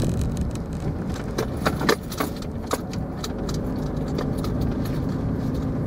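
Car interior on a slow drive: a steady low rumble of engine and tyres, with a scatter of small metallic clicks and rattles in the first half.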